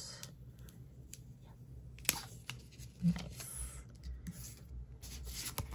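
Soft rustling of a clear plastic zip envelope as fingers rub a vinyl decal down onto it, with a sharp tap about two seconds in and another near the end.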